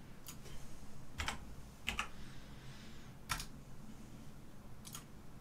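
Keys pressed on a computer keyboard: about five separate sharp clicks at irregular intervals over a faint background hum.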